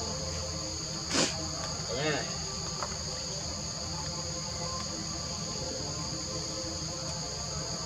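A steady, high-pitched chorus of forest insects droning on two pitches. About a second in, a short sharp call cuts through, followed shortly after by a brief warbling call.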